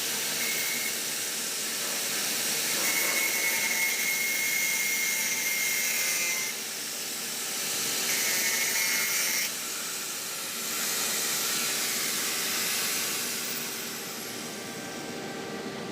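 Electric arc welding: a steady frying hiss of the arc on the bead, which breaks off briefly twice and starts again.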